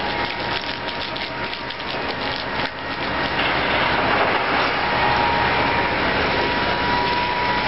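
Fire-hose water jet hissing and its spray pattering down, mixed with crackling and snapping, growing louder about three seconds in. A faint steady whine runs underneath.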